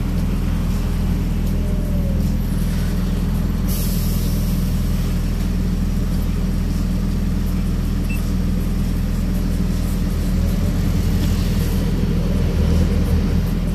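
Scania R 660's 16-litre V8 diesel running steadily at low speed, with a short hiss of air from the air brakes about four seconds in. The engine grows a little louder near the end as the truck moves off.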